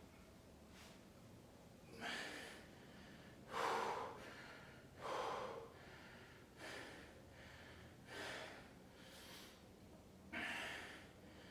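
A person breathing hard from exertion during a lower-body weight workout, with about seven forceful, noisy breaths spaced roughly a second or so apart.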